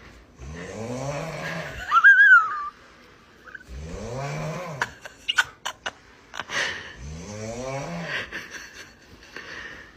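Snoring: three long snores, each rising and then falling in pitch. The first ends in a loud, high whistling squeak, and a few sharp clicks fall between the second and third snores.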